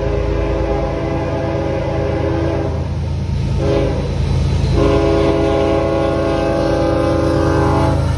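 Diesel locomotive air horn sounding for the grade crossing: a long blast that stops about two and a half seconds in, a short blast a second later, then another long blast from about five seconds in until near the end. Under it runs the steady low rumble of the approaching locomotive.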